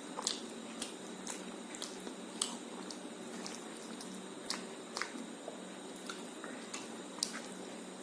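Close-up mouth sounds of someone eating rice and egg curry: wet, squishy chewing with about a dozen short sharp clicks and smacks at irregular intervals.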